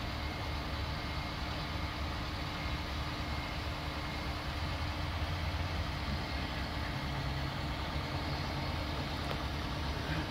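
A heavy vehicle's engine idling steadily, with a low, even rumble.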